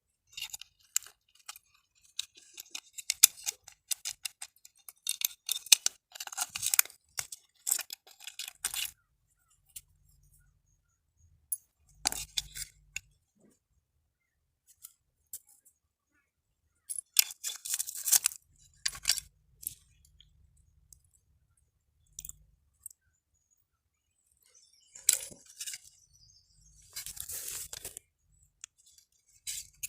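Small plastic and metal parts of a burnt miniature circuit breaker being handled and pried apart: irregular clicks, scrapes and crackling crunches. They come thick in the first third, then in short separate bursts with quiet gaps between.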